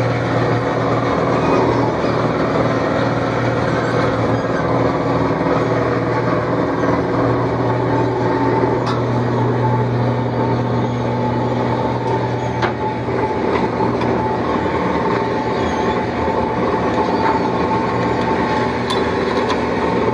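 Shrimp trawler's engine and deck machinery running: a loud, steady low drone, joined about eight seconds in by a steady whine, with a few light knocks.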